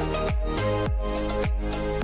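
Background music with a steady beat: a deep kick drum that drops in pitch hits about twice a second under held chord and bass tones.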